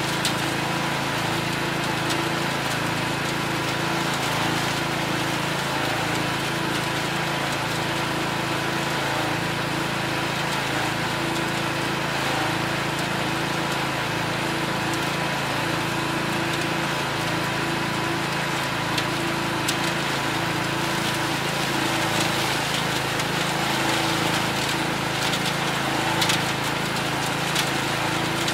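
Cast-iron Kohler K341 16 hp single-cylinder engine of an Allis Chalmers 416 garden tractor running steadily, driving a composter attachment that chops dry leaves fed into its drum, with a few faint ticks over the engine.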